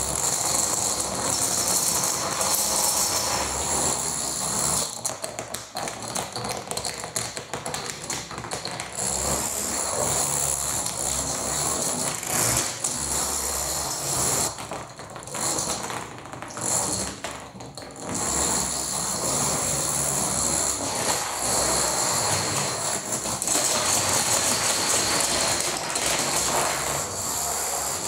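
Long runs of toy dominoes toppling in a chain reaction on a wooden floor: a fast, continuous clatter of small clicks like a ratchet, thinning out briefly about halfway through.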